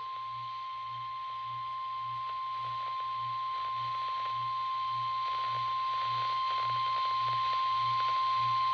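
NOAA Weather Radio warning alarm tone: a single steady high tone held for about nine seconds, slowly growing louder, then cutting off suddenly. It signals that a warning broadcast, here a tornado warning, follows.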